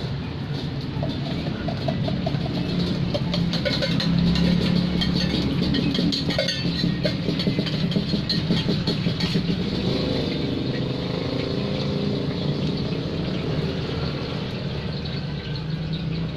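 Martabak frying on a large flat griddle: a steady sizzle over a constant low rumble, with a run of light metal clinks and scrapes in the first half or so as egg filling is poured from a steel cup onto the dough.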